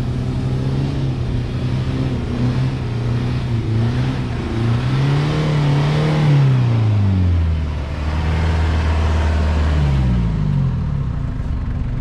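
A 4x4's engine pulling through deep mud ruts. The revs climb to about halfway, drop sharply and hold low for a few seconds, then rise again as the vehicle comes up close.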